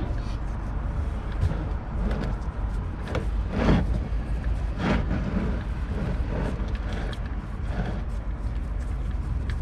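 Wrench working the 13mm oil drain plug loose: scattered light clicks and scrapes over a steady low hum, with two louder scraping sounds about four and five seconds in.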